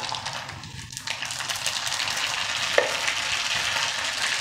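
Mustard seeds and dried red chillies frying in hot oil in a kadai, a dense crackling sizzle that grows louder about a second in, with one sharper click a little before three seconds. This is the tempering (thalippu) for curd rice, the seeds beginning to splutter in the oil.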